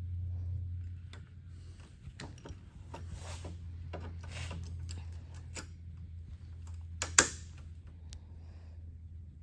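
Small clicks and rattles of tools and parts being handled, with one louder sharp clack about seven seconds in, over a steady low hum.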